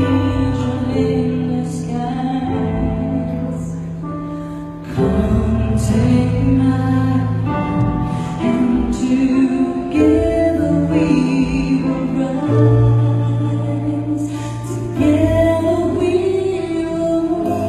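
A woman singing a song live with instrumental accompaniment, holding long notes.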